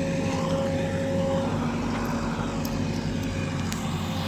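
Diesel engine of a JCB 3DX backhoe loader running steadily, with a steady high whine over the engine.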